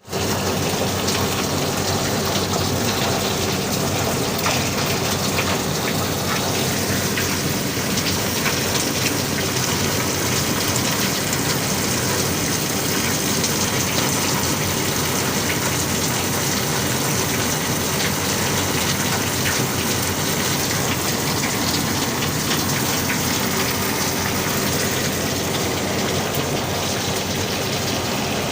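Steady rush of water spraying onto an air conditioner's outdoor unit, with a faint low hum beneath it.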